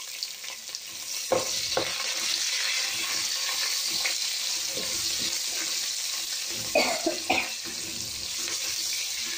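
Sliced onions, green chillies and whole spices sizzling in hot oil and ghee in an aluminium pressure cooker, stirred with a spatula. The spatula knocks against the pot in two quick pairs, about a second in and about seven seconds in.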